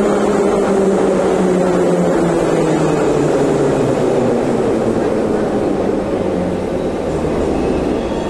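Moscow Metro 81-717/714 ('nomernoy') train pulling into the station and braking. Its traction motor hum and the rolling noise of the wheels fall steadily in pitch and ease off as it slows to a stop.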